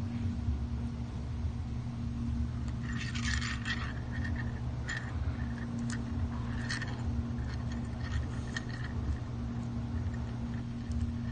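Clicks and rattling of a plastic baby rattle toy as a puppy chews and tugs at it, in clusters from about three to nine seconds in, over a steady low hum.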